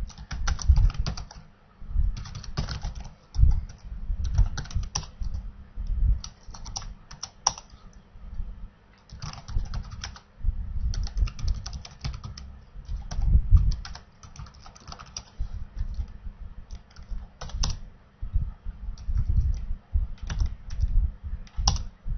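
Typing on a computer keyboard: irregular bursts of quick keystrokes with short pauses between them.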